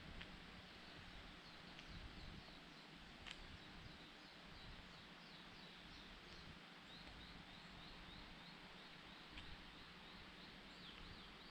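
Faint outdoor ambience with a distant bird repeating short high notes, about three a second, in two runs, and a sharp click about three seconds in.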